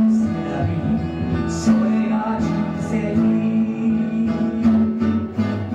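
A small live band playing a ballad: several acoustic guitars strumming over bass and keyboard, with a singer's voice on top.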